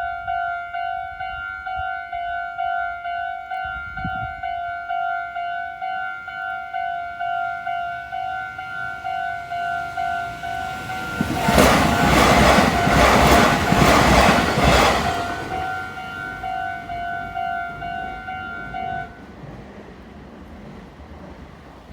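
Japanese level-crossing warning bell ringing in a steady kan-kan rhythm. About 11 seconds in, a Meitetsu Inuyama Line train passes for about five seconds, its wheels clacking over the rail joints and drowning out the bell. The bell stops about three seconds after the train has gone.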